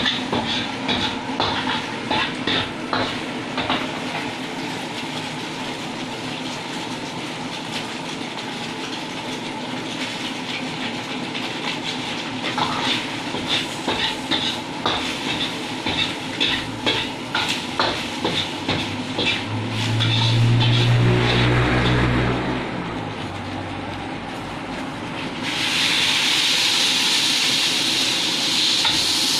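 Noodles stir-frying in a pan: a spatula clicks and scrapes against the metal over a steady sizzle. About 20 s in a loud low hum runs for about two seconds, and about 25 s in the sizzle becomes suddenly louder and stays up, as when fresh food hits hot oil.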